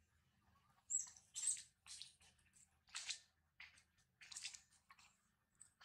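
Dry leaves crackling and rustling under moving macaques: a string of short, crisp crackles, roughly two a second, starting about a second in.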